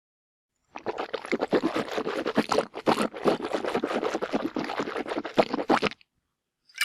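Mouthwash being swished around in a mouth: dense, irregular wet sloshing for about five seconds, starting just under a second in, followed by a brief sharp burst near the end.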